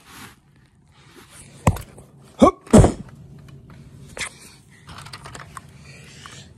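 Handling noise from toys and the camera being moved about on a bedspread: three short, loud, sharp bursts close together a couple of seconds in, then softer rustling and light knocks.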